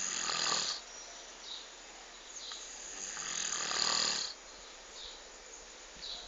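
Snoring in slow, noisy breaths: one snore ends just under a second in, and a longer one starts about two seconds in, grows louder and stops sharply a little past four seconds.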